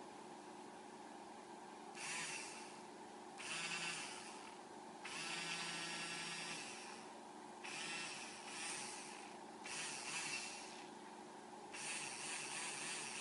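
Homemade mini drill built on a DPM-25-N3-01 DC motor with a brass collet chuck, running free with no load. It is switched on and off, about six short runs of one to two seconds each, the first starting about two seconds in and the last carrying on at the end.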